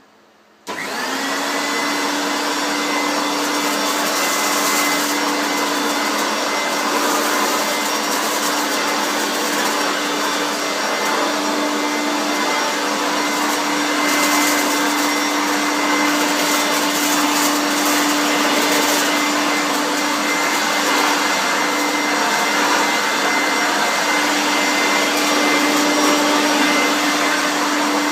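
Hoover Turbomaster U5094 vacuum cleaner switched on about a second in, its motor coming up to speed and then running steadily with a loud rushing of air over a steady hum.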